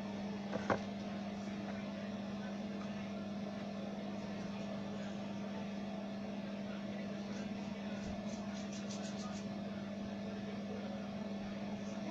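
Steady low hum of a small motor running, with a single sharp click about a second in and a short run of quick faint ticks about eight seconds in.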